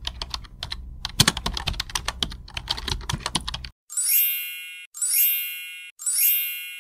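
Computer keyboard typing sound effect: rapid key clicks for nearly four seconds, then three bright chime dings about a second apart, the pop-up sounds of an on-screen Like and Subscribe reminder.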